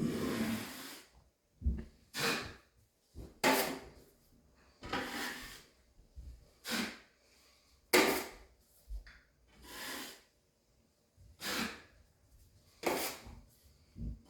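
Drywall knife scraping and smoothing joint compound across a wall, about ten separate strokes, one every second or so.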